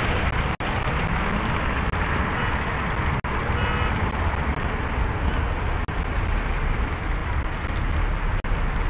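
Steady road-traffic noise, a low rumble with no distinct engine note, broken by short dropouts in the sound about every two and a half seconds.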